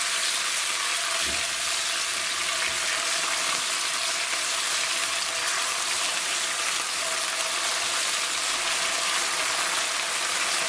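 Garlic and ginger paste with whole cumin seeds frying in hot oil in a wok, a steady sizzle.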